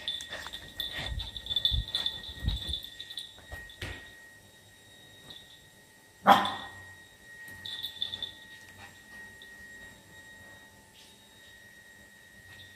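A small dog barks once, sharply, about six seconds in. Before it come a few light knocks.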